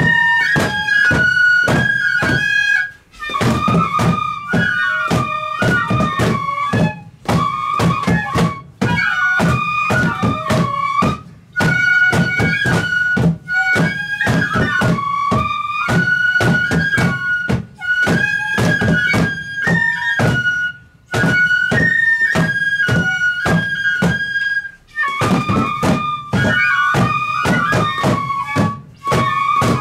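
Japanese festival music for a lion dance: a transverse bamboo flute plays a piping melody of held notes over quick, steady drum strokes, with a few brief pauses.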